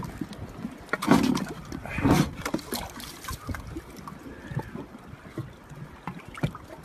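Outdoor boat ambience with wind on the microphone and water sounds. Scattered small clicks and scrapes come as a knife tip pries a barnacle off a sea turtle's flipper, with two louder rushes about one and two seconds in.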